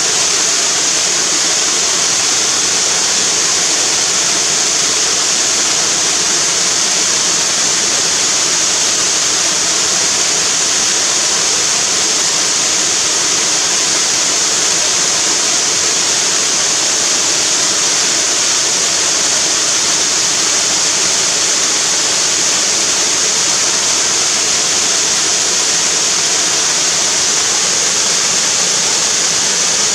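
Waterfall: water falling steadily onto a river, a constant dense rush with a strong hiss.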